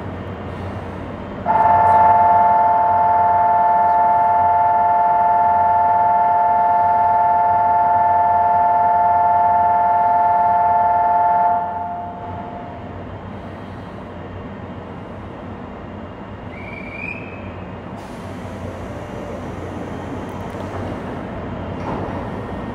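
Station departure buzzer sounding a steady two-note tone for about ten seconds, echoing in an underground platform, signalling that the waiting limited-express train is about to leave. The idling train hums low underneath, and near the end a brief high chirp is followed by a high hiss.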